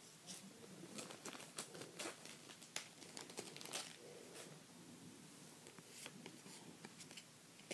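Faint crinkling of a foil trading-card booster pack wrapper being handled, with quick light clicks as the cards are handled. The crackle comes in a busy burst over the first few seconds and again briefly later.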